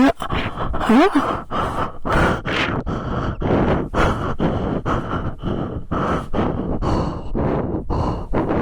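A person breathing heavily and fast close to the microphone, a quick run of loud in-and-out breaths, with a short voiced sound about a second in.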